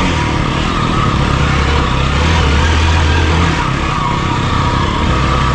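Off-road motorcycle engine running steadily under throttle, a low rumble under a rushing haze of noise.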